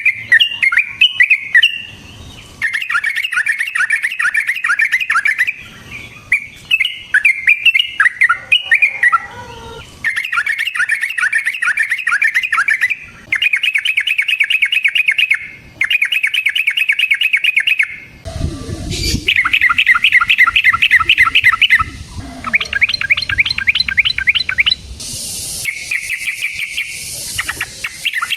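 Yellow-vented bulbul (trucukan) giving fast, rattling chatter songs of quickly repeated notes, the fighting-style call used to lure rival birds. The song comes in bouts of a few seconds that start and stop abruptly, with a brief low rumble about two-thirds of the way through.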